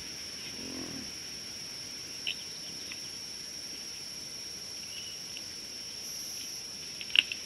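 Steady high-pitched drone of insects in the bush, with a few brief bird chirps. A single sharp crack comes near the end.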